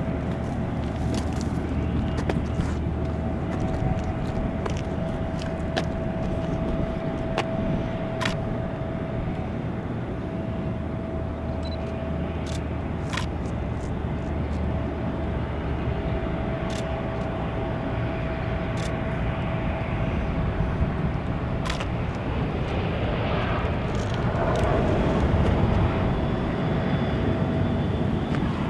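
Jet airliner noise: a steady whine over a low rumble, with a few short clicks and a swell in level near the end.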